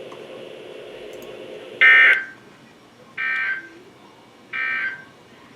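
NOAA Weather Radio's Emergency Alert System end-of-message signal: three short bursts of warbling SAME data tones a little over a second apart, the first the loudest, marking the end of the alert. Faint radio hiss comes before and between the bursts.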